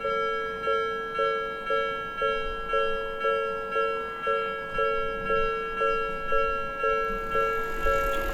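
Japanese railway level-crossing warning bell ringing, an electronic two-tone clang repeated about twice a second, signalling that a train is approaching and the crossing is closing.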